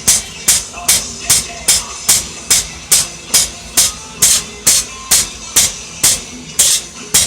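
Hammer blows on steel over an anvil, a steady rhythm of about two and a half strikes a second, each with a short metallic ring, flattening a lawnmower blade.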